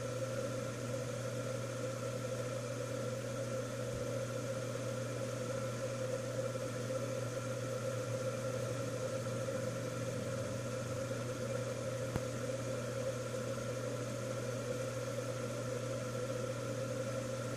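Ceiling fan running overhead with a steady hum and whir.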